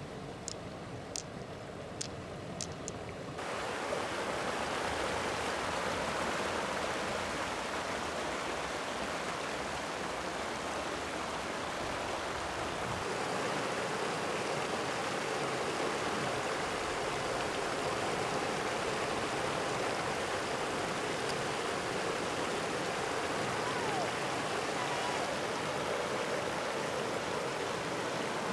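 A few light, sharp clicks of pearls being handled, then from about three seconds in a steady rush of floodwater pouring over a low concrete weir.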